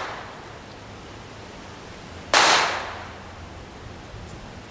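A single shot from a Ruger SR22 .22 LR pistol about two seconds in, sharp and then trailing off over about half a second. The fading tail of the previous shot is heard at the very start. The shots are part of a slow, evenly spaced string.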